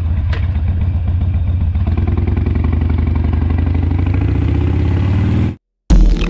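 2005 Harley-Davidson Sportster 883's air-cooled V-twin idling steadily through Vance & Hines slip-on exhausts just after a start. The idle cuts off abruptly about five and a half seconds in, and a loud hit follows a moment later.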